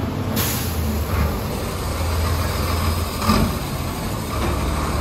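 Heavy water tanker truck's diesel engine running as the truck rolls slowly past, a steady low rumble. A short hiss comes about half a second in.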